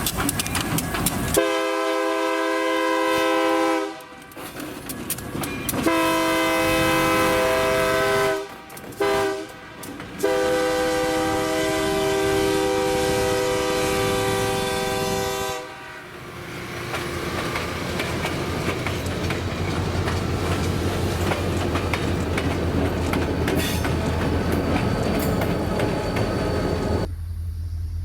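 EMD SD40-2 diesel locomotive's air horn sounding the grade-crossing signal: two long blasts, a brief one, then a longer one. Afterwards the locomotive's engine rumbles steadily as the train rolls past with wheels clacking on the rail joints.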